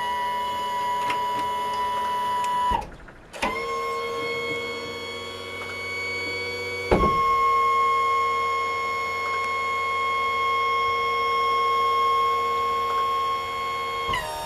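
Power trim-and-tilt motor of a Yamaha 140 hp outboard running, a steady high electric whine as it moves the outboard down. The whine breaks off briefly about three seconds in, then steps up, louder and slightly higher, about seven seconds in.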